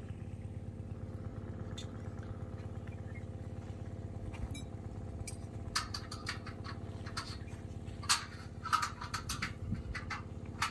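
A steady low machine hum, with irregular scuffs and clicks joining in about halfway through.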